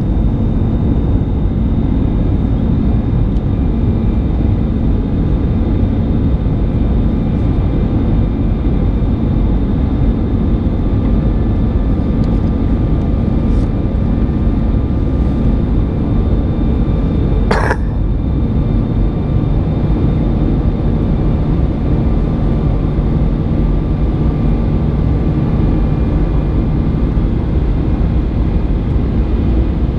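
Airbus A320 cabin noise in flight: the steady noise of the jet engines and the airflow past the fuselage, with a few faint steady high whines. A single brief click a little past halfway.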